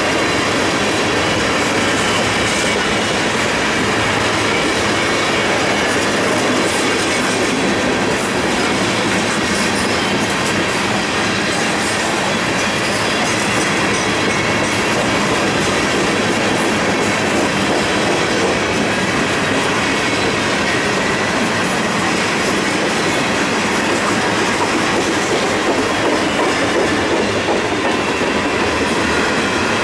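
A freight train's cars, covered hoppers and tank cars, rolling past: a steady, unbroken noise of steel wheels running on the rails.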